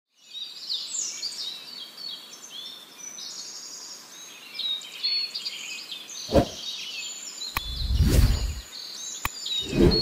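Dense chorus of many birds chirping and whistling together. A short low thump comes about six seconds in, and a deep rumbling swell, the loudest sound, follows around eight seconds, with another starting near the end.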